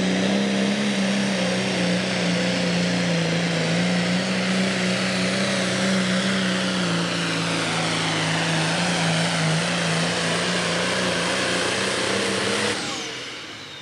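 A Pro Stock pulling tractor's turbocharged diesel engine runs flat out under full load as it pulls the sled, with a steady, slightly wavering drone and a high whine over it. About 13 seconds in, the engine is shut off and the sound dies away.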